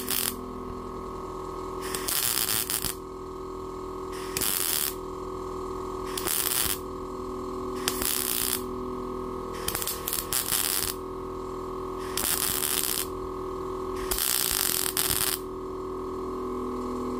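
MIG welder laying short stitch welds on a butt joint in thin sheet metal: about eight brief bursts of arc crackle, each under a second, roughly every one and a half to two seconds, with a steady hum between. The short, quick bursts are meant to keep the thin sheet from burning through.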